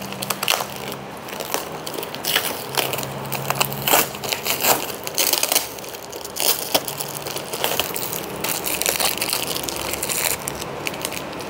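Packing material being pulled from a plant shipping box and handled: a thin lattice packing crate and paper, giving an irregular run of crackles and sharp clicks.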